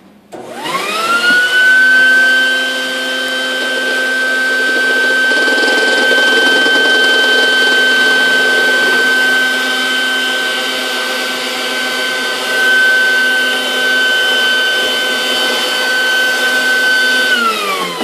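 Wet/dry shop vacuum switched on, its motor spinning up within about a second to a steady high whine. It runs steadily, then is switched off near the end and winds down with falling pitch.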